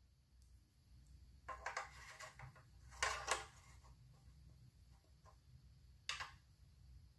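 Short, faint clicks and clatters of a small metal seatpost clamp being handled and fitted onto the seat tube of a carbon fibre mountain bike frame: a cluster of them, then two close together, then one more near the end.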